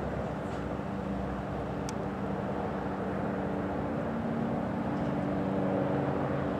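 Steady drone of a distant engine, several even tones held together, slowly growing louder toward the end.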